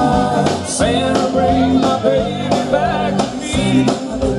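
Live band playing an upbeat Christmas song on electric guitars and a drum kit, in an instrumental stretch between sung lines.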